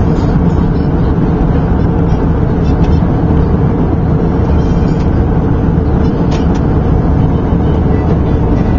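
Steady, loud cabin noise of an airliner in cruise flight, heard from inside the cabin: a constant low rush of engines and airflow that does not change.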